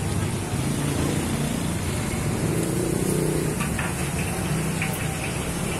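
Steady road traffic noise, with the low hum of a vehicle engine passing, slightly stronger a little past the middle.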